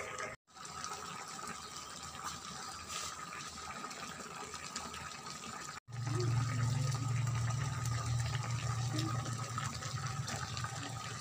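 Fish and tomato broth simmering in a wok on a portable gas stove: a steady bubbling hiss. It gets louder, with a low rumble, from about six seconds in.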